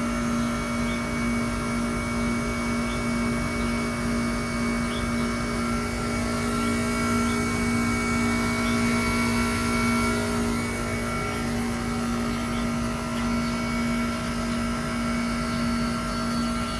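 Carrier TECH2000 38YKC heat pump outdoor unit running through its defrost cycle, a steady mechanical drone with a strong low hum and fainter steady tones above it.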